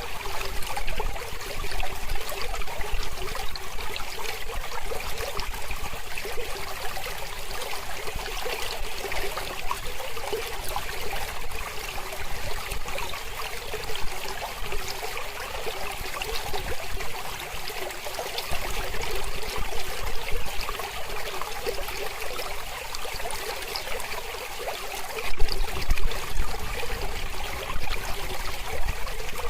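Mountain river flowing, a steady rush and trickle of water that swells briefly about 25 seconds in.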